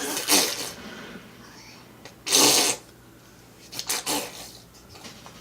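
A child blowing raspberries with the lips, making spluttering mouth fart noises: a short one at the start, a longer, louder one a little past two seconds in, and two more around four seconds in.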